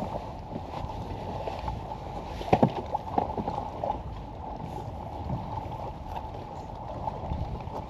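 Water lapping against a kayak hull with some wind noise, and a quick cluster of sharp knocks about two and a half seconds in, with a few lighter ones just after.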